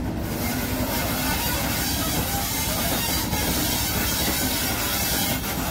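Diesel multiple unit approaching slowly: a steady engine rumble mixed with the noise of wheels rolling on the rails.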